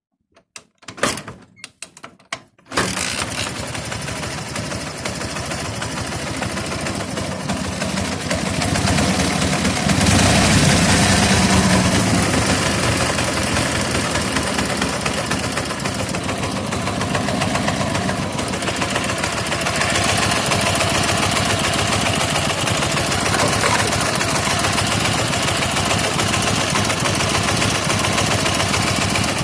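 Ural motorcycle's flat-twin engine catching after a few sputters, then running with a knock. The engine has just been rebuilt with all new parts and is not yet properly tuned; the owner does not know what causes the knock. It revs up a little about ten seconds in.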